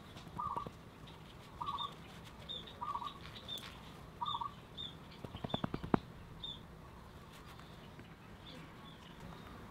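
A bird chirping over and over, about one short call a second, through the first half. A quick run of sharp clicks comes between about five and six seconds in and is the loudest sound.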